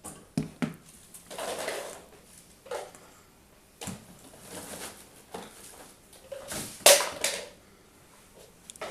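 Wire stripping tool squeezed and released on an electrical cable, stripping a few millimetres of insulation: a series of sharp clicks and snaps with brief scraping, the loudest snap about seven seconds in.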